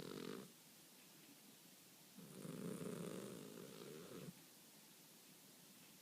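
A Persian cat snoring in its sleep. The tail of one low snore ends just after the start, then one full snore of about two seconds comes in the middle, with quiet gaps between breaths.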